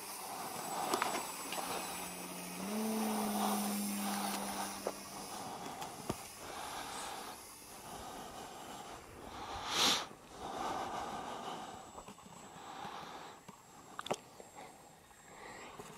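Distant motor of a radio-controlled model Su-27 jet whirring as it circles overhead, swelling and fading as it passes, with a steady low motor note that steps up in pitch early on. A louder whooshing burst about ten seconds in.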